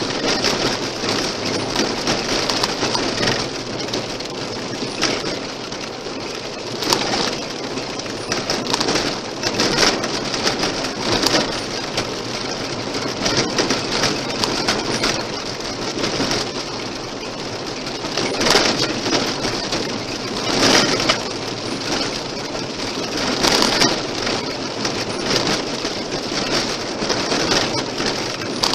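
Car tyres on a gravel road: a steady rush of road noise packed with the crackle of loose stones thrown against the car, heard from inside the car. The crackling swells into louder spells every few seconds.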